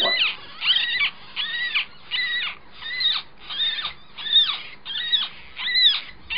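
Nine-day-old ferret kit squeaking over and over, about two high-pitched cries a second, each one rising and then falling in pitch.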